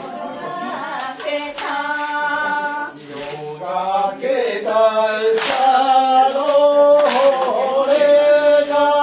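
Singing of a Japanese folk dance song, held wavering notes, with sharp hand claps from the dancers every second or two.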